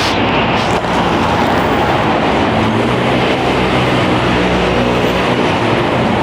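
BTS Skytrain train running past on the elevated line, mixed with steady city traffic noise, its low hum growing from about two and a half seconds in.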